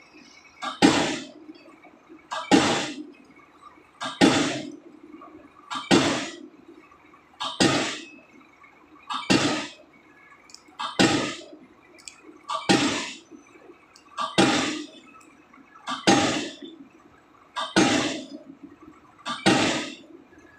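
A 7-ton hydraulic pile-driving hammer striking a PHC spun concrete pile, about one heavy clanging blow every 1.7 seconds, twelve blows in all, each with a short ringing tail.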